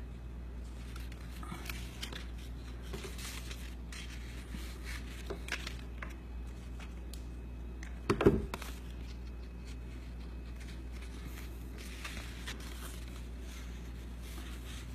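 Cardstock paper petals being handled and pressed together: soft rustles and scrapes of paper, with one louder knock about eight seconds in, over a steady low hum.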